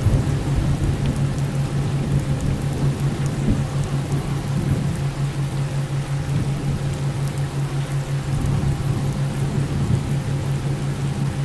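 Subliminal audio bed: a low hum pulsing about five times a second (a theta-wave beat) and a steady 528 Hz tone, under rumbling masking noise with faint crackles, like rain and thunder.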